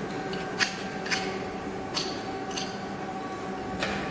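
Steady machine hum holding a few level tones, broken by about five sharp clicks or knocks at uneven intervals.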